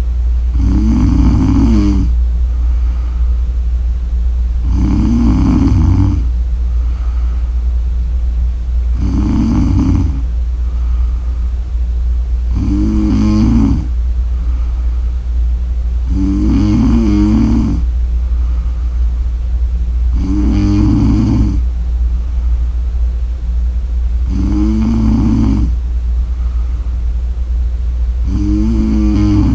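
A woman snoring: eight snores in a steady rhythm, one about every four seconds, each lasting about a second. A steady low hum runs underneath.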